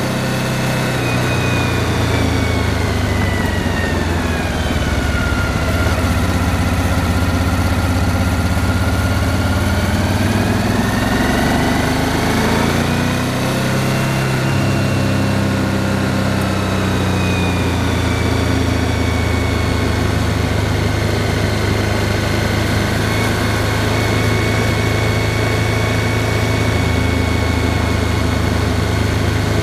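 Motorcycle engine running while riding, its pitch falling over the first few seconds, rising again about ten to fourteen seconds in, then easing off and holding steady. A constant rushing of wind and tyre noise runs underneath.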